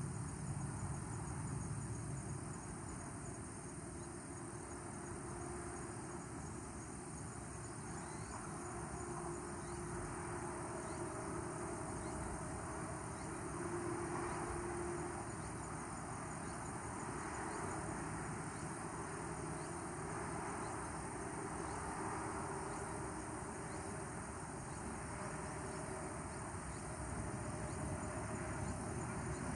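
Insects calling in the evening, a steady high-pitched trill with fast pulsing chirps beneath it, over a low steady background rumble.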